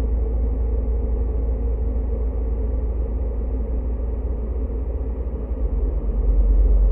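Dark ambient drone music: a deep, steady low rumble with a faint haze above it, swelling louder near the end.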